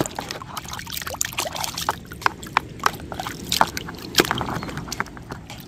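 Water sloshing and splashing in a plastic tub as a hand swishes a toy action figure through it: many small, irregular splashes and drips.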